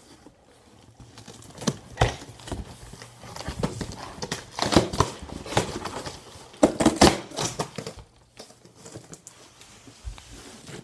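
A taped cardboard box being pulled open and handled: irregular rustling, crinkling and scraping of cardboard and packing, with a few knocks, loudest around five and seven seconds in.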